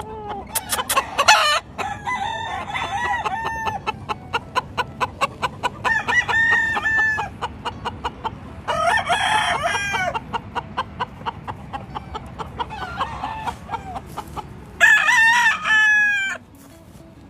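Gamefowl roosters crowing, about six crows one after another, the loudest near the end. A fast regular clicking, about five a second, runs under the crows and stops with the last one.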